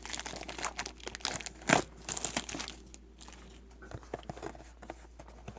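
Plastic packaging of trading cards crinkling and tearing as it is handled and opened, a dense run of crackles over the first three seconds, the loudest about two seconds in, then a few faint ones.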